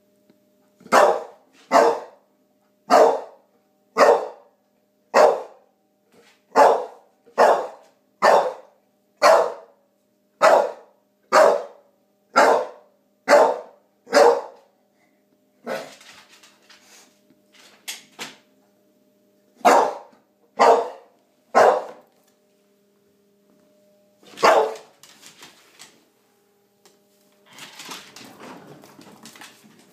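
A dog barking at a vacuum cleaner it is afraid of: a run of about fourteen barks, roughly one a second, then after a pause three more quick barks and a single one. A rustling, scuffling noise follows near the end.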